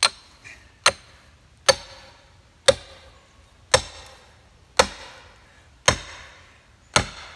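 Splitting maul striking a felling wedge driven into the back cut of an oak, eight heavy blows about a second apart, each ringing briefly. The wedge is being driven in to tip the tree and free a chainsaw bar pinched in the cut.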